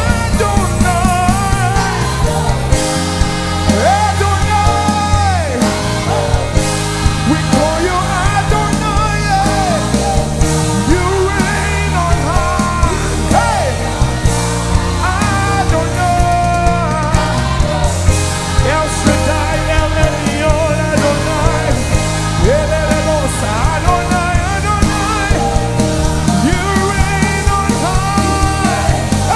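Live worship band playing with a steady drum beat, bass and keys, while a singer sings drawn-out, bending melodic lines over it.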